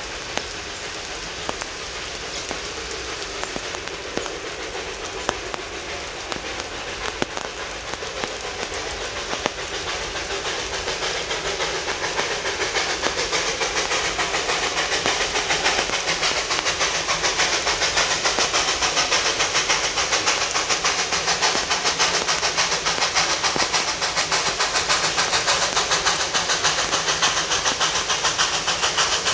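Steam locomotive 14A, a narrow-gauge NA class 2-6-2T tank engine, approaching under steam: its exhaust beats come up out of a steady hiss of rain and settle into a rapid, even chuffing that grows steadily louder. A few sharp drips or clicks sound early on.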